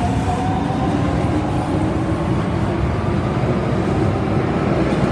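Osaka Metro Tanimachi Line 22 series subway train running with a steady rumble of wheels on rail. A rising motor whine fades out about half a second in.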